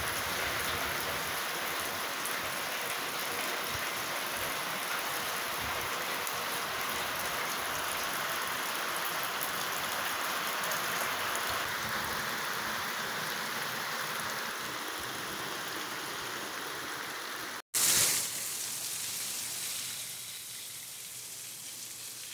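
Rain falling steadily on clay-tiled roofs, an even hiss. Just before the last few seconds it cuts out abruptly, comes back briefly louder, then settles into a softer rain.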